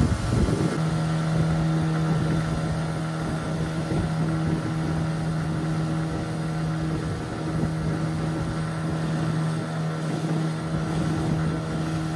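Small motorboat's engine running at speed, a steady hum over the rush of wind and water spray. The first second is rougher and louder before the hum settles.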